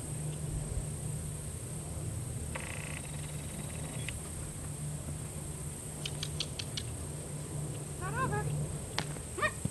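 Horse whinnying near the end: a pulsing call, then a shorter rising one, over a steady low background rumble.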